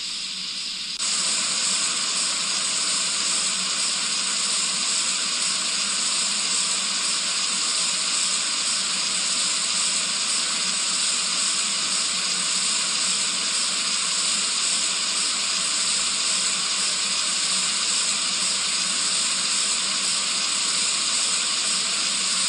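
A steady, even hiss that steps up in level about a second in and then holds unchanged.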